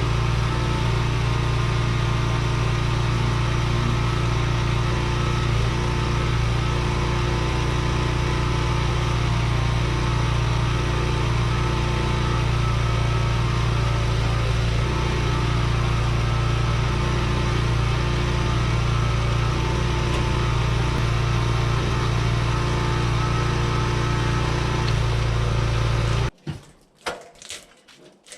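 A steadily running engine with a strong, even low hum that stops abruptly near the end, followed by a few sharp knocks.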